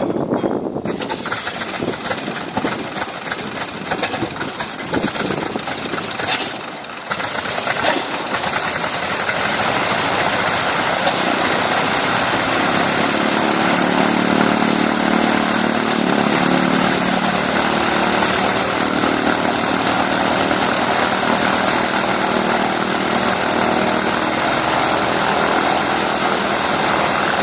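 Continental R-670 seven-cylinder radial engine of a Boeing PT-17 Stearman being started by its flywheel inertia starter. It turns over unevenly with irregular pops, catches about seven seconds in, and settles into a steady idle.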